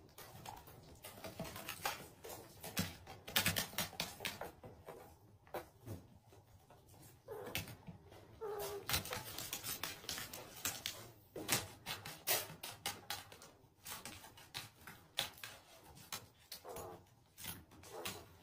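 Kittens play-fighting: faint, irregular scuffling and clicking of paws and claws on a mat, with a few brief, faint kitten cries.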